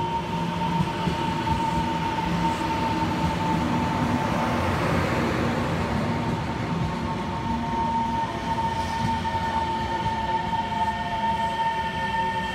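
Taiwan Railways EMU700 electric multiple unit pulling in along the platform and slowing, its wheels rumbling on the rails under a steady high whine.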